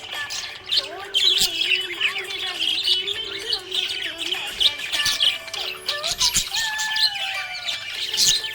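A parrot chirping and squawking in quick, repeated high calls with rising and falling glides, over background music with a steady held tone.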